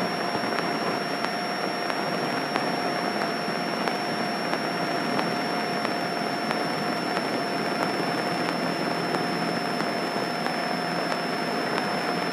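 Single-engine light airplane's piston engine and propeller droning steadily at cruise power, heard inside the cockpit with rushing air noise and a steady whine over it.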